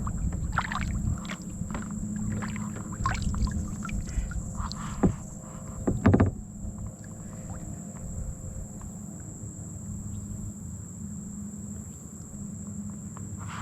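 Wind rumbling on the microphone of a kayak drifting on open water, with a scatter of small clicks and knocks from handling in the boat and two louder knocks about five and six seconds in.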